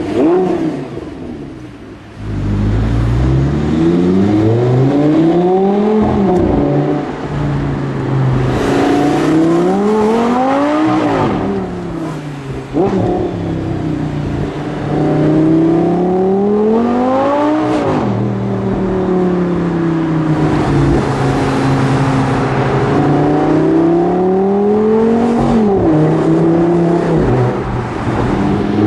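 Audi R8's V10 with a Quicksilver aftermarket exhaust, heard from inside the cabin, accelerating hard several times. The revs climb in rising sweeps and drop back sharply at each shift, settling between pulls. A single sharp crack comes about thirteen seconds in.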